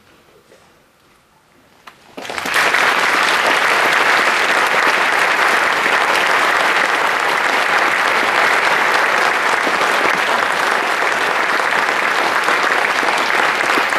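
An audience applauding a concert band: a hush of about two seconds after the music stops, then clapping breaks out suddenly and holds steady.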